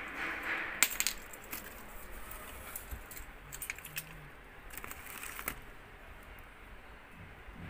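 A scatter of light clinks and clicks from small hard objects being handled, the sharpest about a second in and more around five seconds in.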